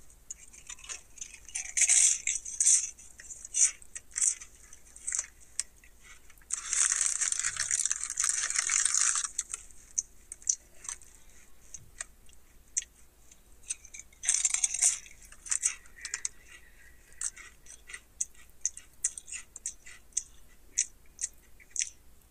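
Crinkling and rustling of a potato chip bag, loudest in a long spell a few seconds in and a shorter one about two-thirds of the way through, with scattered crackles and clicks between them as Lay's potato chips are taken from the bag and crunched.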